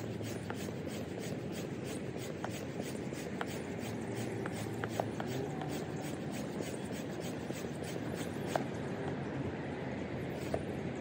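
Hand pump inflating an inflatable stand-up paddleboard: repeated pump strokes with a rhythmic hiss of air, the board nearly fully pumped up.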